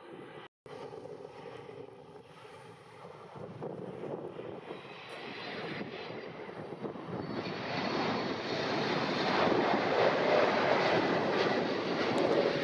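Jet airliner engines, growing steadily louder as the aircraft passes close, loudest about ten seconds in. Earlier, a fainter, steadier engine hum with a whine is cut off abruptly.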